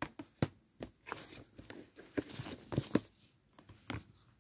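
Plastic DVD cases being handled and shuffled: a string of irregular clicks and knocks with short rustles between them.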